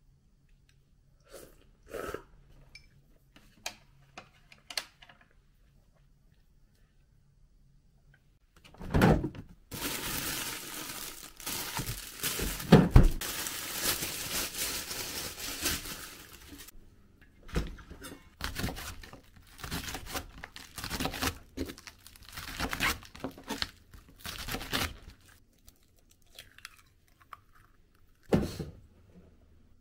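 Kitchen prep sounds: a few light clicks of chopsticks on a ceramic ramekin, then a plastic produce bag around a bunch of green onions crinkling and tearing loudly for about seven seconds. After that comes a run of sharp knife strokes on a cutting board as the green onions are chopped, and a single knock near the end.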